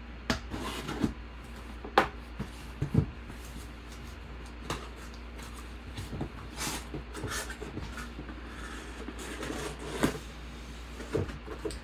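Cardboard shipping box being opened by hand: a blade slicing through packing tape, then the cardboard flaps rustling and scraping open and a boxed mini helmet sliding out, with scattered sharp knocks and taps.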